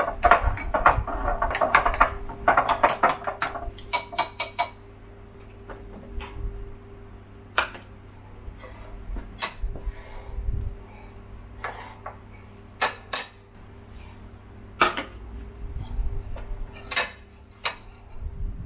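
Wooden chopsticks beating batter in a ceramic bowl: a fast run of clicking and scraping that stops about four seconds in. After that come scattered single clinks and knocks of dishes being set down.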